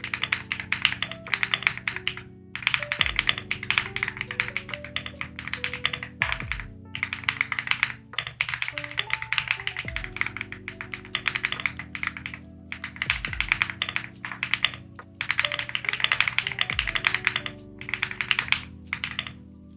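Fast typing on a custom mechanical keyboard: bursts of rapid keystroke clacks, each a second or two long with brief pauses between words, over lofi background music.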